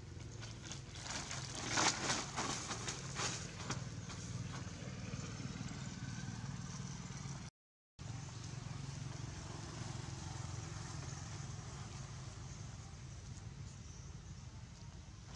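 Clear plastic sheeting crinkling and crackling in a cluster of bursts about one to four seconds in, as a young monkey tugs and scrambles on it. Otherwise a steady low background hum, with the sound cutting out briefly about halfway.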